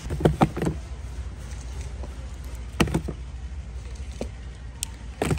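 A shrink-wrapped multipack of plastic sunscreen spray bottles handled and set down on a platform shopping cart: a quick cluster of knocks and clunks in the first second, another clunk about three seconds in and one near the end, over a steady low rumble.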